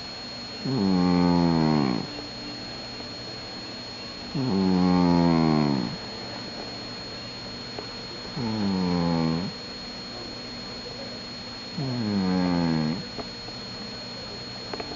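Domestic cat snoring: four pitched snores about every three and a half to four seconds, each lasting a second or so and falling in pitch.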